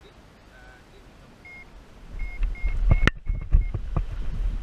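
Paragliding variometer beeping in short, evenly pitched high beeps that come faster from about a second and a half in, the sign that the glider is climbing. Wind buffeting the microphone grows loud about two seconds in, with a sharp click about three seconds in.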